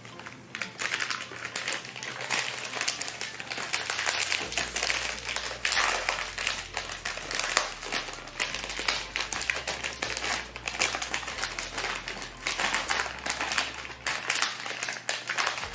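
Plastic candy wrappers crinkling and rustling as small packets are pulled from a multi-pack bag and handled and opened, with a continuous run of small crackles.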